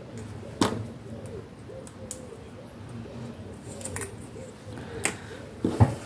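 A few sharp clicks and knocks of small craft items being handled on a cutting mat, a wooden clothespin and a plastic glue bottle among them, the loudest a double knock near the end. Behind them, a dove cooing over and over.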